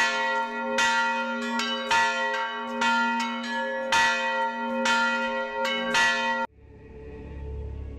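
Church bells rung by hand from a small bell tower, several bells struck over and over in a quick, uneven pattern. The ringing cuts off suddenly about six and a half seconds in, and soft ambient music fades in.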